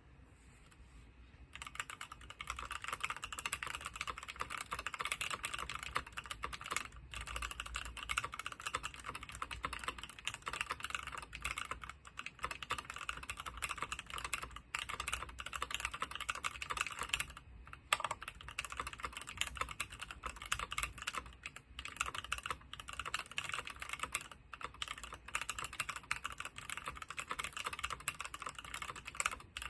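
Fast continuous typing on a DC60 mechanical keyboard with NK Cream linear switches, lubed with Krytox 205g0, mounted in a brass plate: a rapid stream of keystroke clacks. It starts about a second and a half in and pauses briefly near the middle.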